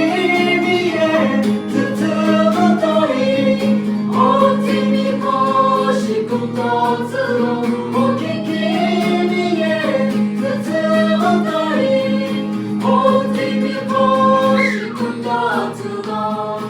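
A group of voices singing together in harmony over a steady low held note.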